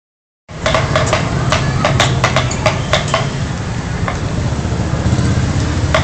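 Motorbike engine idling steadily, with a quick run of sharp clicks during the first three seconds and a few more near the end.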